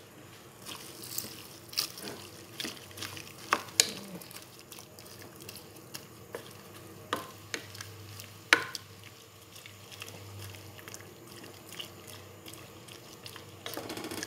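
A utensil stirring cabbage and carrots into a pot of hot broth, with scattered irregular clicks and knocks against the pot, the loudest about eight and a half seconds in.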